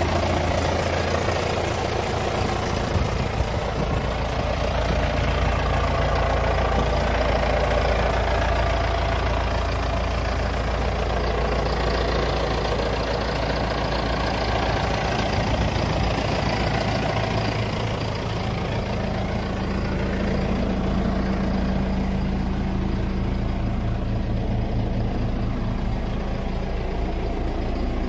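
2013 John Deere 5100R tractor's diesel engine idling steadily.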